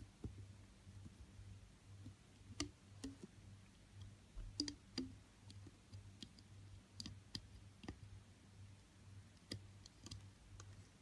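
Faint, irregular clicks of a plastic hook tool against the plastic pegs of a loom, as silicone loom bands are hooked up over the pins one by one.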